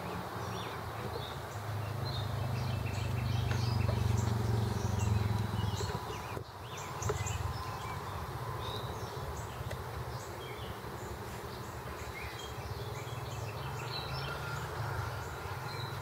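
Honeybees buzzing around the hive in a steady low hum that is strongest for the first six seconds or so. Birds chirp in short, scattered calls throughout.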